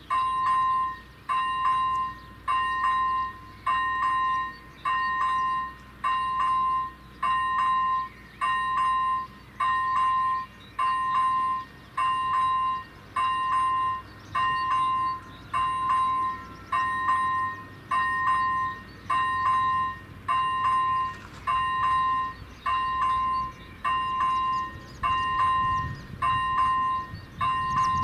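Czech level-crossing warning bell on AŽD 97 signals ringing steadily, one electronic 'ding' about every second while the red lights flash and the barriers are down, warning of an approaching train. A faint low rumble builds near the end.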